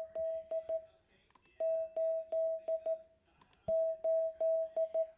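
Morse code side tone from an Icom IC-7300 transceiver: a steady single-pitched beep keyed as the digit eight, dah-dah-dah-dit-dit, repeated. The first sending is already under way at the start and is followed by two complete ones. A sharp click marks the start of each element.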